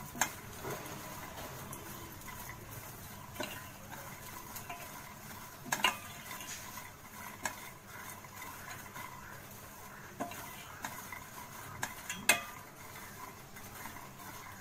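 A spatula stirring makhana (fox nuts) as they fry in ghee in a steel pot. It scrapes through the nuts and knocks sharply against the pot's side about six times, loudest near the end.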